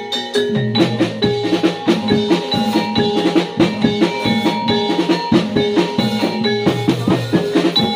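Javanese gamelan music accompanying a jaranan/reog dance: tuned metal mallet instruments play quick repeated notes over frequent drum strokes in a steady, driving rhythm.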